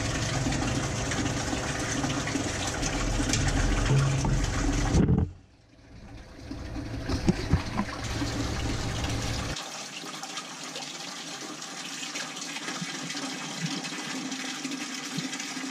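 Flush water running through a Boss 302 engine block and splashing out into a plastic bucket: a steady gushing of water. It breaks off suddenly about five seconds in, then comes back quieter and holds steady. The water now runs clear, so the block flush is nearly done.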